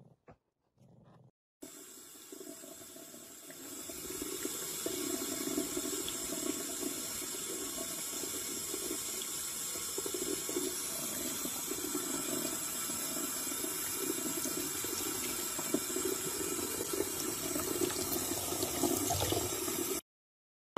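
Thin stream of tap water running steadily into a sink, getting louder about four seconds in.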